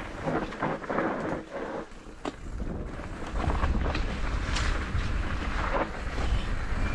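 Mountain bike descending a steep, rutted trail of dry dirt: tyres rolling over dirt and stones, with a few sharp knocks from the bike over bumps, and wind rumbling on the microphone.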